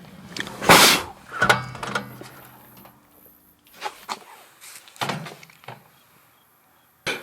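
Microwave oven clunks and a door-like knock, with the oven's low hum stopping about three seconds in, then a few faint clicks.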